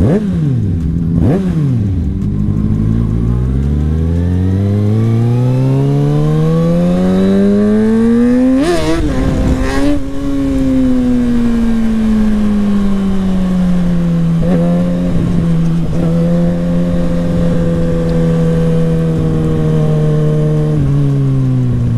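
Kawasaki ZX-6R inline-four sportbike engine running with its stock muffler removed, heard from on the bike: the revs climb in one long, steady rise for several seconds, flutter briefly about nine seconds in, then settle into a steady cruising note that sinks slowly and drops near the end.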